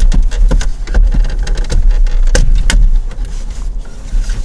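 Plastic clicks and knocks from hands and a plastic pry tool working the shifter trim of a 2007 Toyota Camry's centre console, over a steady low rumble.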